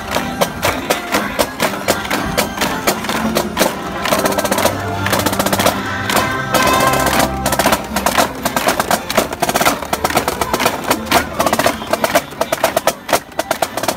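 Marching snare drums playing quick strokes and rolls, over parade music.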